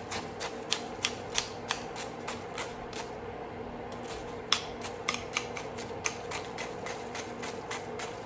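A utensil clicking against a cup at about three clicks a second as Ritz crackers are crushed and mashed into melted butter, with a brief pause about three seconds in. A faint steady hum underneath.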